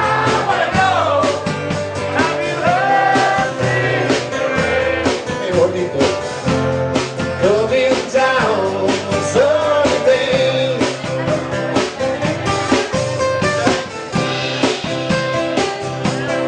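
Live rock band playing: a man sings into a microphone over guitar, bass and drums keeping a steady beat.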